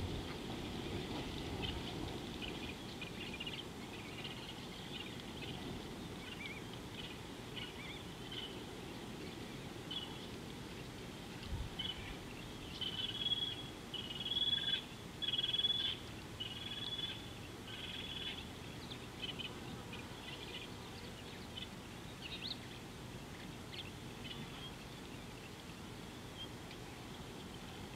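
Wild birds calling over a steady outdoor background, with scattered high chirps. About halfway through, one bird gives a quick run of short, high, repeated notes, the loudest sound here.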